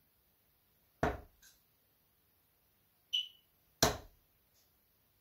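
Steel-tip darts thudding into a Winmau Blade bristle dartboard, two sharp hits about three seconds apart, with a short ringing click just before the second.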